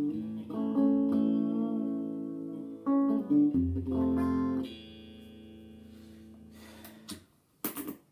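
Tokai Goldstar Sound ST50 Stratocaster copy, 1956-style with U-bottom single-coil pickups, played clean through a Tokai TA-35 transistor amp: a few chords and single notes, the last chord ringing out and fading from about four seconds in. A short noisy scrape comes near the end.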